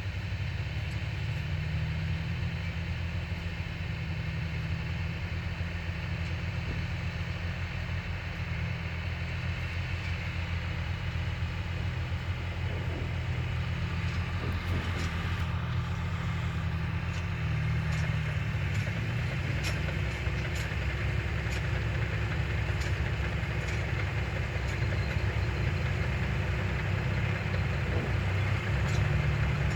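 Heavy machinery engine running steadily with a low hum, growing slightly louder near the end, with a few faint clicks in the middle.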